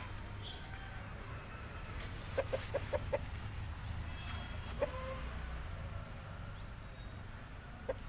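Aseel game rooster clucking: a quick run of about five short low clucks about two and a half seconds in, then a single cluck near the five-second mark and another at the end.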